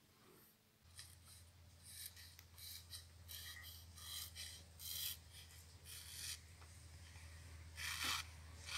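A hand-forged, mirror-polished chisel made from leaf-spring steel shaving through the edge of a sheet of paper in a run of short, quick cutting strokes, a test of the freshly honed edge's sharpness; the loudest pair comes near the end. A steady low hum runs underneath.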